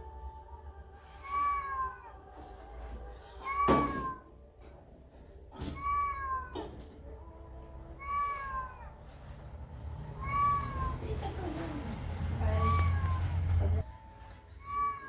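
Recorded cat meow played through a phone speaker in a loop: the same short meow repeats seven times, about every two seconds.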